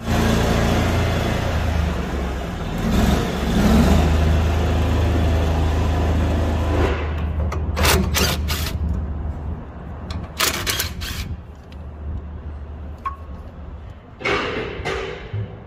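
John Deere 5320 tractor's diesel engine running steadily, cutting in abruptly at the start. It eases off after about seven seconds, and a few sharp clicks and knocks follow.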